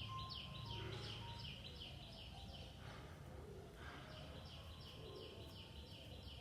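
A bird calling in quick runs of short, falling chirps, several a second: one run fades out about a second and a half in and another starts about four seconds in. A steady low background rumble runs underneath.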